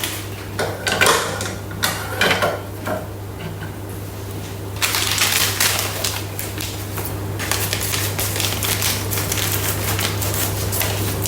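A packet of dry soup mix being handled and opened: scattered clicks and crinkles at first, then a dense stretch of rustling from about halfway through. A steady low hum runs underneath.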